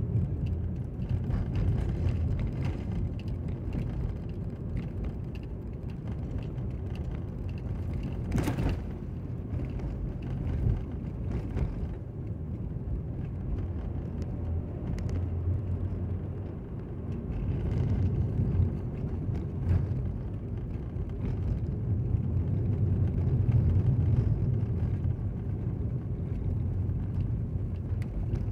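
Car cabin road noise: a steady low rumble of engine and tyres on a paved road, heard from inside the moving car. There is a single brief click about eight seconds in.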